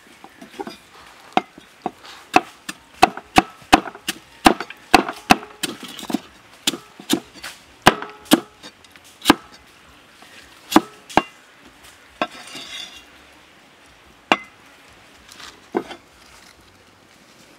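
Cleaver chopping garlic and galangal on a thick round wooden chopping block: an irregular run of sharp knocks, about two to three a second, for roughly eleven seconds. A short rustle follows, then a few single knocks.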